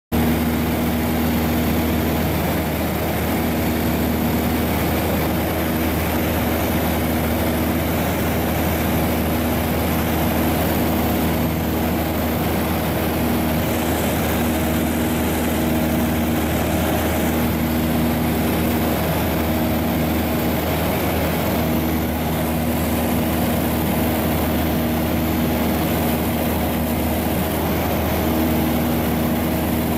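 Light aircraft's engine and propeller running steadily at cruise, heard from inside the cabin: a continuous hum over a broad rush of noise, with a slow pulsing in the tone every couple of seconds.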